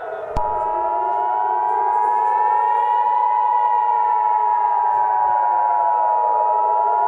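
The steady two-tone Emergency Alert System attention signal, starting with a click about half a second in, sounding over a civil defense siren that wails slowly up and down in pitch.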